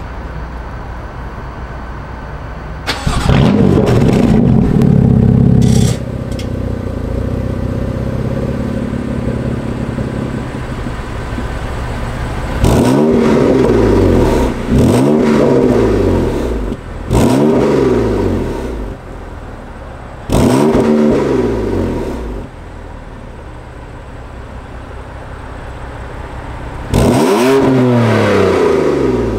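BMW M3 CS's twin-turbo straight-six running through a Frequency Intelligent valved exhaust. It idles, holds a loud steady higher speed for about three seconds, then settles and is blipped five times, each rev rising and falling back to idle, the last near the end.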